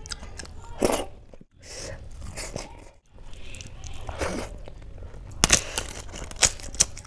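Close-miked eating: wet chewing of hand-eaten rice and kadhi, then several crisp crunching bites of fried papad about five and a half seconds in.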